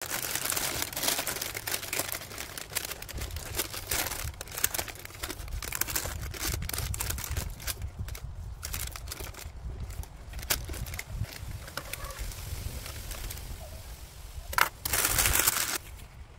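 Brown paper crinkling and rustling in gloved hands as it is stretched over the mouth of a clay pot and tied down with string, with a longer, louder rustle near the end.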